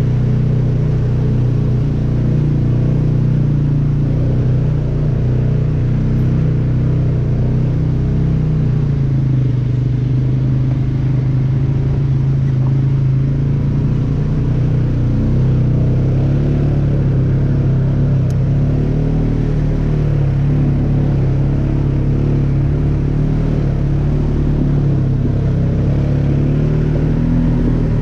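A motor vehicle's engine running steadily under way, a low drone that wavers slightly in pitch.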